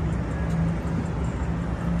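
Steady low rumble of street traffic, with music mixed in.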